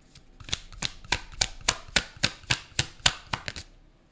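A deck of tarot cards being shuffled by hand: a steady run of about a dozen crisp card slaps, roughly four a second, that stops shortly before the end.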